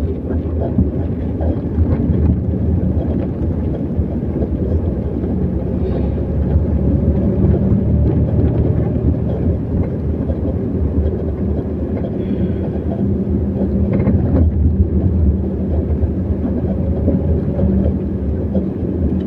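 Road and engine noise heard from inside a moving car's cabin: a steady low rumble.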